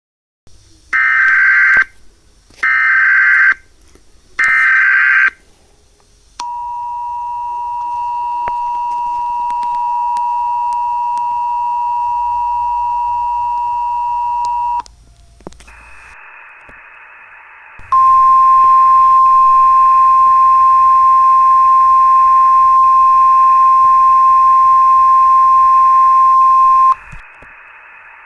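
Emergency Alert System tones: three short, harsh data bursts of the SAME header about a second apart, then the two-tone EAS attention signal held steady for about eight seconds. After a short gap a hiss comes in, and a loud steady single tone, the weather-radio alert tone, sounds over it for about nine seconds and cuts off near the end, leaving the hiss.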